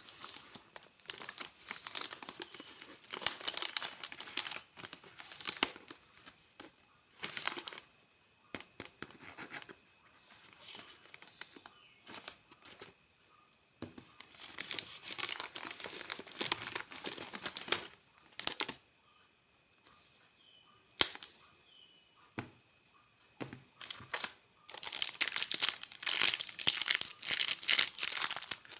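Snack wrappers and plastic packaging being torn open and crinkled by hand, in bursts with short pauses between, dense again near the end.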